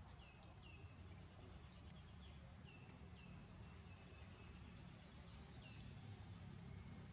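Faint outdoor ambience near silence: a low rumble with about six short, high chirps that each drop slightly in pitch, scattered irregularly, from a small animal.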